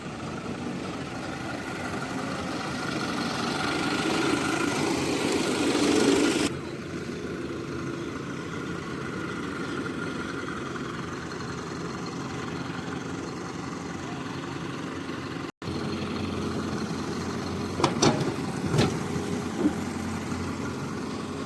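Hyundai hydraulic excavator's diesel engine running, growing louder under load for about six seconds before an abrupt cut, then running steadily. Three sharp knocks come near the end.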